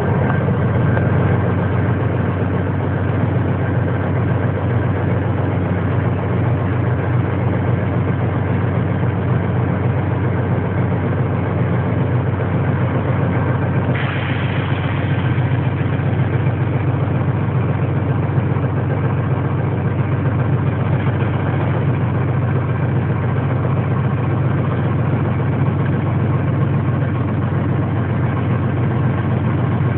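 Diesel locomotive engine running steadily, heard from its cab as the train pulls out. About halfway through the sound turns brighter and harsher as the microphone moves to the open cab window.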